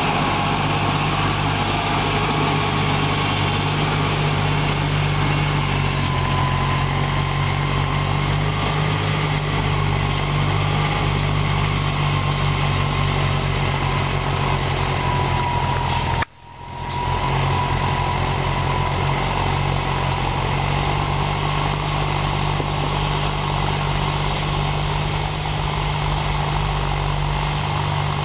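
Hattat tractor's diesel engine running steadily under load while pulling a tillage implement, with a thin whine above the engine note. The sound cuts out for a moment about halfway through.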